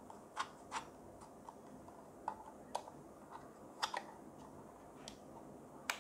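Irregular sharp plastic clicks and taps as an AA battery is fitted into a BT-168D battery tester and its spring-loaded sliding arm is pushed against the cell. There are about ten clicks, unevenly spaced, over faint hiss.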